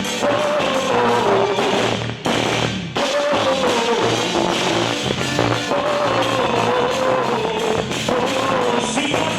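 Music for a quadrilha junina dance: a drum-kit beat under a gliding lead melody, with two short breaks about two and three seconds in.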